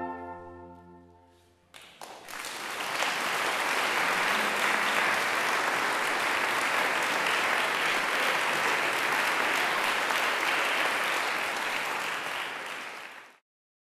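The children's orchestra's final held chord rings and dies away. About two seconds in, audience applause starts; it holds steady and then cuts off abruptly near the end.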